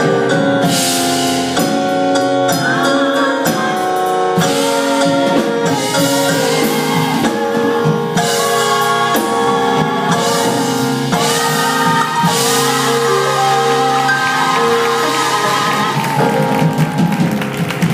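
Gospel choir singing in harmony with drums and instruments behind them, holding long chords that shift every second or two as the song draws to its close.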